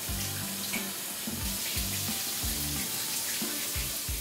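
Shower water running steadily as a hiss, under background music with a bass line and a regular kick drum.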